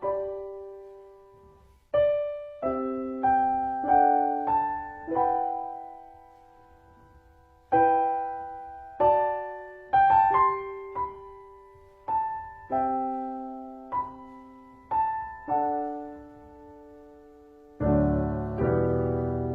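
Slow solo piano: single notes and small chords struck one at a time, each ringing and dying away, with pauses between phrases. Near the end, fuller chords come in lower down.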